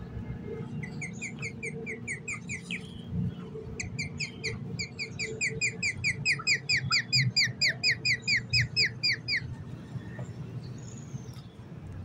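Rose-ringed parakeet calling in rapid runs of shrill, sharply falling notes, about five a second. A short run comes about a second in, then a longer, louder run lasts some five seconds and stops suddenly.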